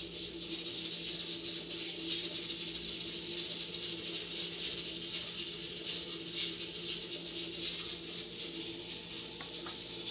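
Steady kitchen background hum and hiss, with a few faint soft taps as a small knife cuts cooked chayote in the hand and the cubes drop into a glass bowl.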